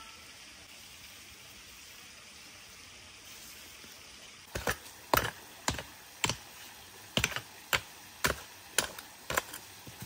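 Short-handled hand pick striking dry, packed earth to break ground for a pit: a run of about ten sharp strikes, roughly two a second, beginning about four and a half seconds in.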